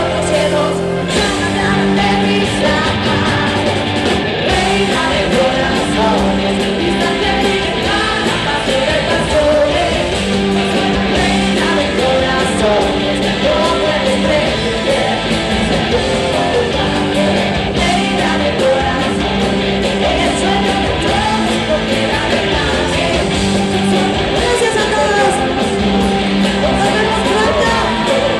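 Live rock band playing with a woman singing lead and a backing singer, guitar, keyboards and drums, with a low sustained note pulsing on and off under the vocal line.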